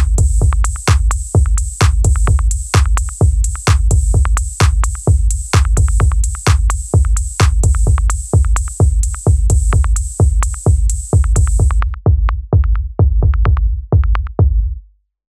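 Electronic background music with a steady drum-machine beat, about two beats a second. A high hissing layer drops out about twelve seconds in, and the music fades out just before the end.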